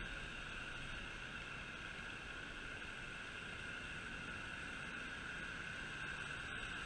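Small go-kart engine (Predator 212 single-cylinder) running as the kart drives toward the camera: a faint, steady drone under hiss, growing slightly louder near the end.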